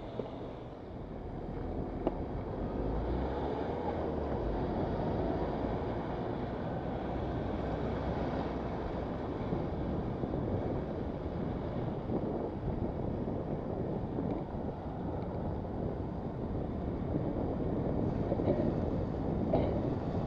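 Wind buffeting the microphone of a bicycle-mounted camera, over the rumble of tyres rolling on wet asphalt. A light knock comes about two seconds in and another near the end.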